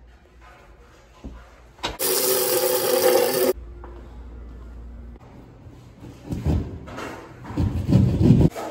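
Hand-tool work on plumbing fixtures: scraping and rubbing strokes that build into a run of loud, rhythmic strokes near the end, where a screwdriver is at work. About two seconds in, a loud rushing hiss lasts about a second and a half and cuts off suddenly.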